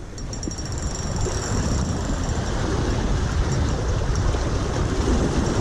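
A spinning reel buzzing high and thin as a hooked fish pulls against the line, in two spells. Under it, wind rumbles on the microphone and surf breaks on the rocks.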